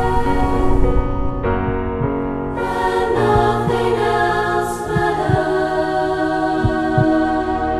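Soundtrack music: a choir singing long held chords that change a few times, with a few short low thuds under it.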